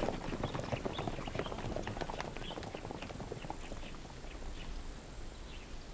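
Horses' hooves clip-clopping at a walk, a rapid patter of hoof strikes that grows steadily fainter as the horses move away.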